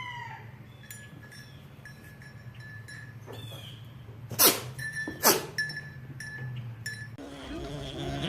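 A pet sneezes twice in quick succession, two sharp bursts less than a second apart about halfway through.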